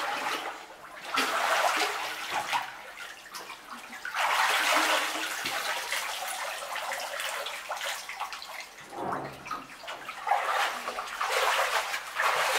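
Water splashing and sloshing in a baptistry pool as a person is dipped under and raised out of it, then wades through it. The splashing comes in surges: about a second in, again around four seconds in, and near the end.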